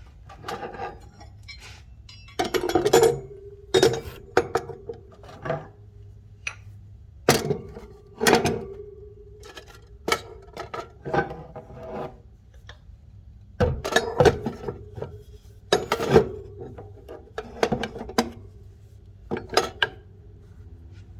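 Hand tools being handled, with about a dozen separate knocks and clatters of hard objects, some leaving a brief metallic ring.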